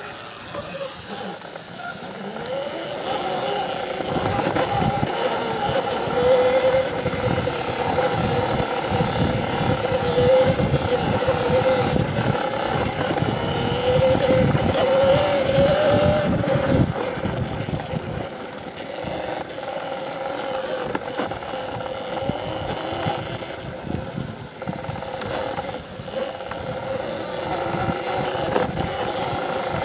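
CZEM Drill One electric dirt bike's motor whining while riding, with irregular low rumbling underneath. The whine wavers in pitch with speed, rises a little past the middle, then eases off and goes quieter.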